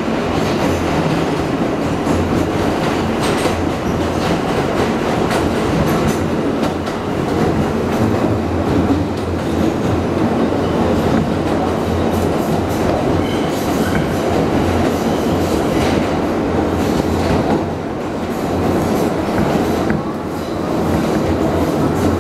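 NYC subway R160 trains running at speed in a tunnel, heard from inside the moving car: a steady loud rumble of steel wheels on rail with irregular clicks over the rail joints, joined by the second train running alongside on the parallel track. The noise dips briefly twice near the end.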